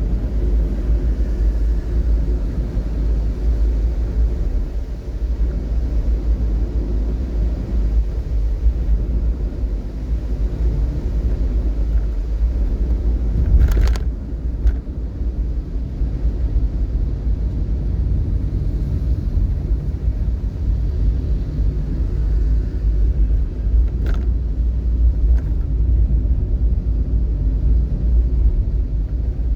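Steady low rumble of a vehicle on the road, engine and road noise heard from on board. Two brief sharp clicks stand out, one about halfway through and one near the end.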